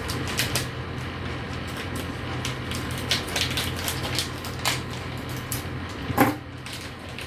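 Small clicks and light rattles of PC parts and a SATA cable being handled, with a louder knock about six seconds in, over a steady low hum.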